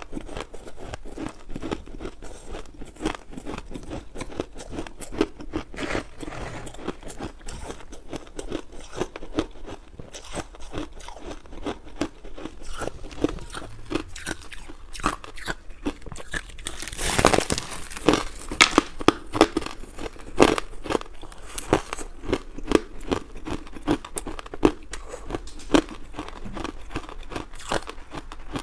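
Crushed ice being bitten and chewed close to a clip-on microphone: a steady run of crisp crunches, with one loud, longer crunch a little past halfway and denser crunching after it.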